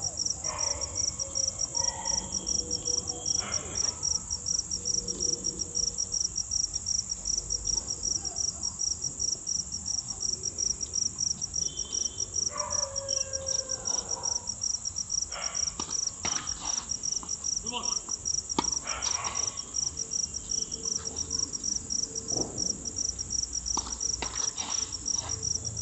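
Crickets chirping in a steady, fast-pulsing high chorus. In the second half there are a few sharp knocks of a tennis ball struck with rackets.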